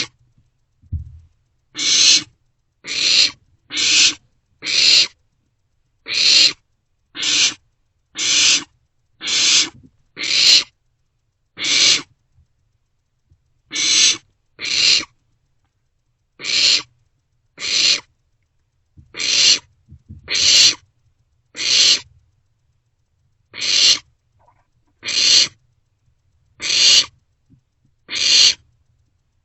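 Barn owlets giving hissing, screech-like calls, about twenty short calls at roughly one per second with a few brief pauses: the rasping begging calls of owlets competing over food.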